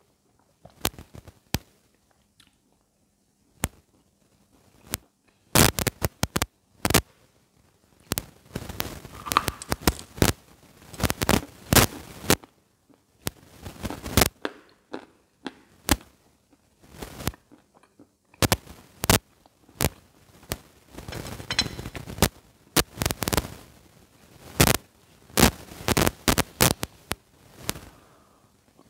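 Close-miked biting and chewing of hard white chalk: crisp cracks and crunches, coming in irregular clusters with short pauses between bites.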